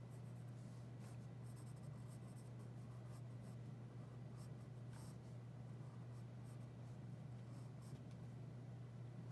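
Pencil scratching on drawing paper in short, irregular sketching strokes, faint over a steady low hum.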